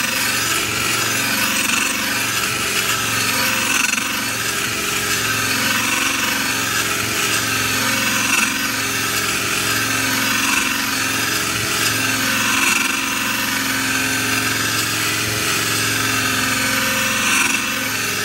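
Drill running steadily with a sharpening-stone attachment, the stone grinding along the steel edge of a lawnmower blade held in a vise as it is sharpened from the back side.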